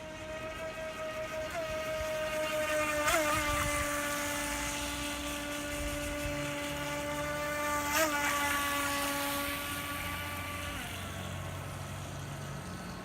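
Electric motors of radio-controlled speedboats whining steadily out on the water. A second, lower whine joins about two seconds in, and the pitch jumps briefly three times. Both whines fade about eleven seconds in.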